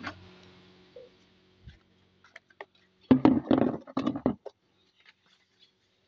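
Handling noise from the phone: a few faint clicks, then about three seconds in a loud cluster of rubbing knocks on the microphone lasting a little over a second.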